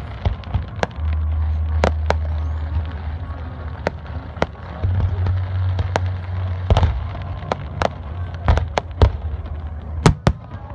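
Aerial fireworks display: an irregular series of sharp bangs and crackling reports from bursting shells, with a cluster of the loudest bangs near the end.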